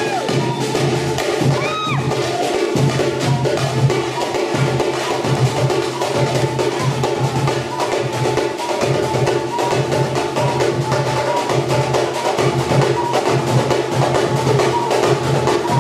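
Samba batucada drumming: metal-shelled surdo bass drums and smaller drums struck with sticks, played together in a steady, dense groove.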